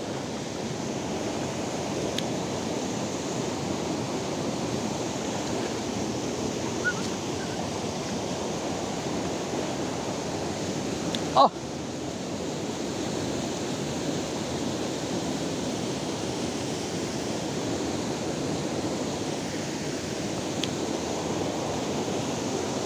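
A shallow rocky stream rushing over stones makes a steady water noise. About halfway through there is one brief sharp sound.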